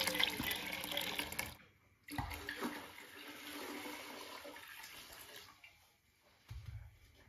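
Water pouring from a clay jug and splashing into a pot of beans; it cuts off about a second and a half in. The pouring then starts again, quieter, for about three seconds, and near the end there is a soft low thump as the jug is set down on the carpeted floor.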